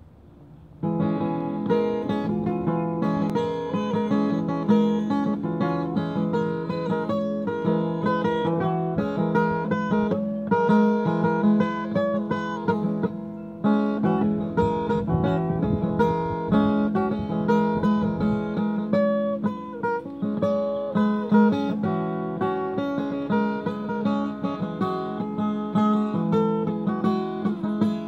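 Acoustic guitar being played, single notes and chords, starting about a second in, with a brief pause about halfway through before the playing carries on.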